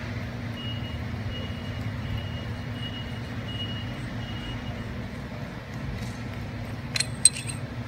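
Steady low background hum with a faint, repeated high-pitched beeping over the first few seconds. About seven seconds in come a few sharp metallic clicks from the metal lock nut and fittings being worked off the bottom end of a steel bladder accumulator.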